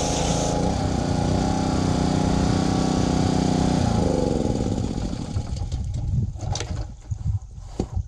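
Small petrol engine of a Troy-Bilt pressure washer (Honda motor) running. The hiss of the water spray cuts off about half a second in. About four seconds in the engine slows and its pitch falls away, leaving a low uneven rumble.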